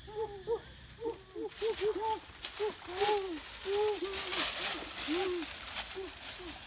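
Many short hooting calls, each rising and falling, overlapping one another throughout. From about a second and a half in to about five seconds, there is a crackling rustle of dry leaves underfoot.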